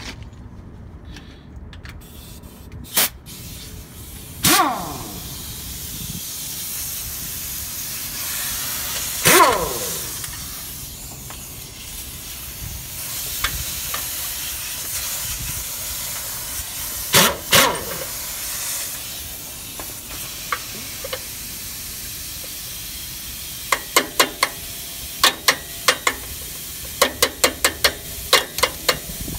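Hand work on an Isuzu truck's rear drum-brake shoes and springs: metal clicks and knocks, two ringing twangs that fall in pitch, and a quick run of clicks near the end, over a steady hiss.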